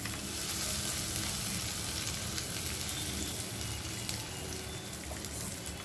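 Whole spices and cumin seeds sizzling in hot oil in a kadai, with a steady hiss: the tempering (phoron) is frying.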